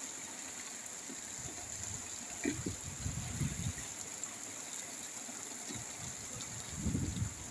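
Rain falling steadily with a constant hiss, while gusts of wind buffet the microphone with low rumbles about a third of the way in and again near the end.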